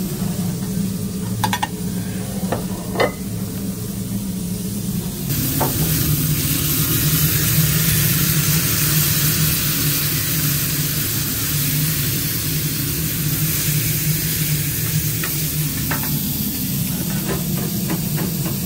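Beef burger patties sizzling on a flat-top griddle as they are pressed flat with spatulas. The sizzle sets in suddenly about five seconds in, after a few light clinks, over a steady low hum.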